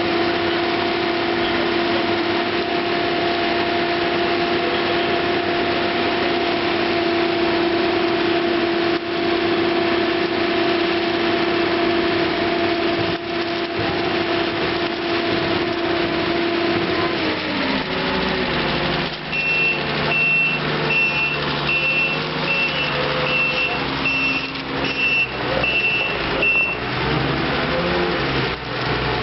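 Diesel engine of a Carmix self-loading concrete mixer running at steady high revs, its pitch dropping about two-thirds of the way through. A reversing beeper then sounds a little more than once a second for about seven seconds, over the engine.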